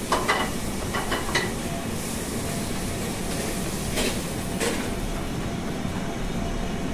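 Steady commercial-kitchen background noise with a few scattered knocks and clatters of utensils and dishes as food is prepared.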